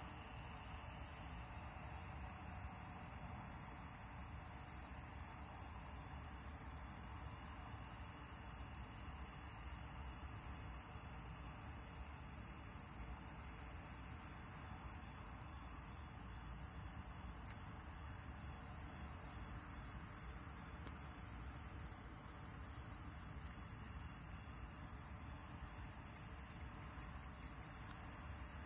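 Crickets chirping: a steady, high, rapidly pulsing trill that goes on without a break, over a faint low rumble.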